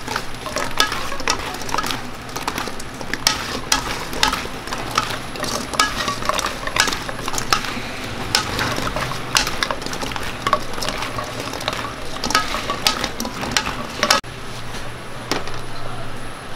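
Fried chicken for dakgangjeong being stirred in a metal pan: repeated clinks and scrapes of a metal utensil against the pan over a steady sizzling hiss, thinning out near the end.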